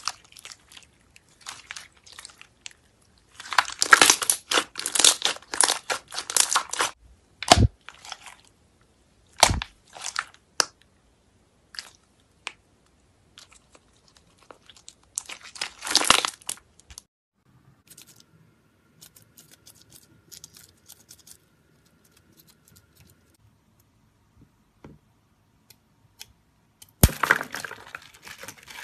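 Hands squeezing, pressing and poking sticky slime with fruit-slice pieces mixed in, making clusters of wet crackling and clicking pops, with a few sharper single pops. The crackling is densest in two long stretches early on and in the middle, goes quiet for several seconds, and returns near the end.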